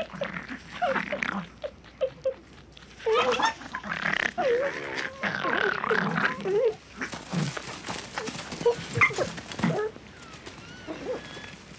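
A puma and foxes snarling and yelping in a squabble over the puma's kill: a quick run of harsh, wavering yelps and snarls that thins out near the end.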